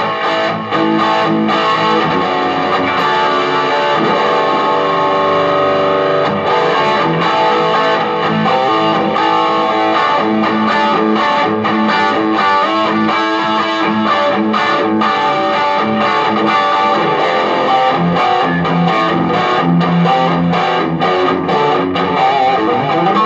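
Electric guitar played through a 15-watt Marshall MG15 solid-state combo amp with distortion, a continuous run of sustained chords and riffs.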